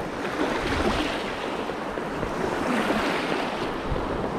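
Surf washing over the shallows in a steady hiss that swells twice.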